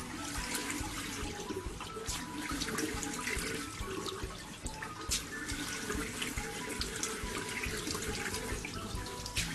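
Water running from a sink tap with irregular splashing as hands rinse exfoliating water off a face.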